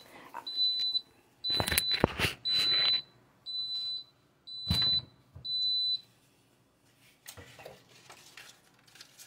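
Mug heat press's electronic timer beeping: a series of high, steady beeps about once a second that stop about six seconds in, the signal that the pressing time is up. A few clunks from handling the press come between the beeps.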